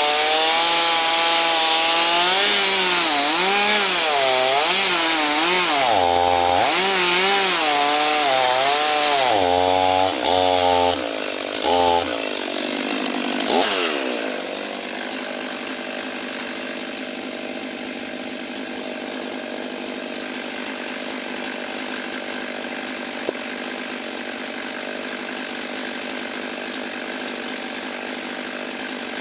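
Stihl MS 500i fuel-injected two-stroke chainsaw ripping lengthwise along the grain of a log, its engine pitch rising and sagging under load, with a few brief throttle blips. About fourteen seconds in the engine winds down and then runs on at a steady, quieter idle.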